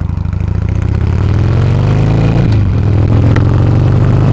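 Motorcycle engine accelerating: its pitch climbs, drops at a gear change about two and a half seconds in, then climbs again.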